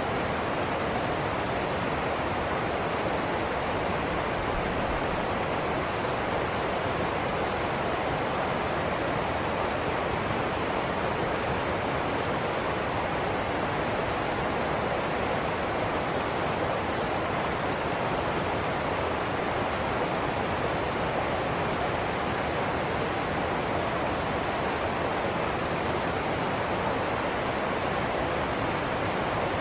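River water rushing over rocks in small rapids, a steady, unbroken rush.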